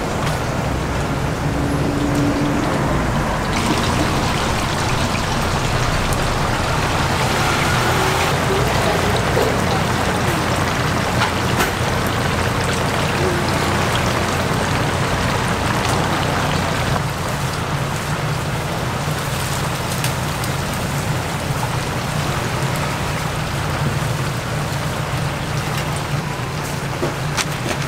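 Whole chickens deep-frying in a commercial fryer: the hot oil bubbles and crackles steadily, like rain, over a steady low hum.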